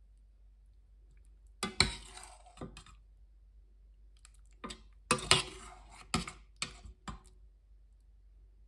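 A metal ladle clinking and scraping against the side of a stainless steel pot as it scoops pork and broccoli in thick gravy. The clinks come in two groups, a few about two seconds in and a longer run of sharp knocks a little after the middle.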